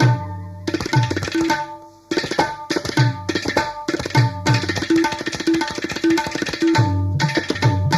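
Background music led by tabla drumming, a steady pattern of strokes with a short repeating melodic note, dropping away briefly about two seconds in.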